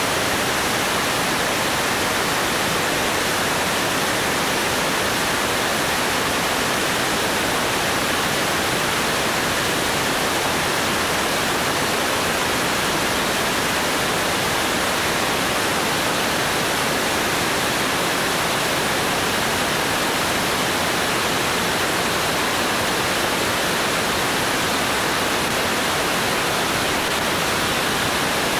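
Steady, even rush of airflow over a camera mounted outside under a Cessna 205's wing, flying at about 150 mph.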